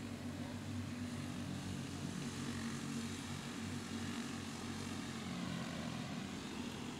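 Engines of a pack of small winged sprint cars racing on a dirt oval, a steady drone of several motors blending together.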